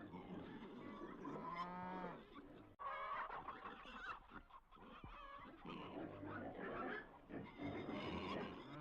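Herd of migrating wildebeest and zebras calling: repeated calls with a wavering pitch, several overlapping, with a brief break about three seconds in.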